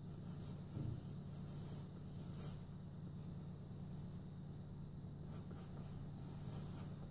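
Graphite pencil sketching on paper: light scratchy strokes in two spells, with a soft bump a little under a second in. A steady low hum runs underneath.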